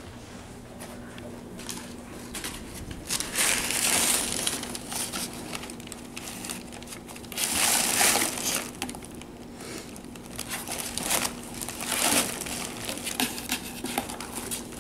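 Green plastic air-pillow packing and brown kraft packing paper crinkling and rustling in irregular bursts as kittens clamber about in a cardboard box.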